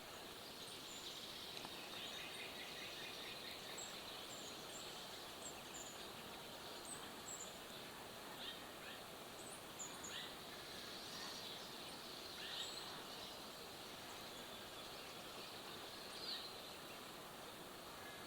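Faint outdoor ambience of a woodland: a steady background hiss with many short, high bird chirps scattered throughout, and a couple of slightly louder calls.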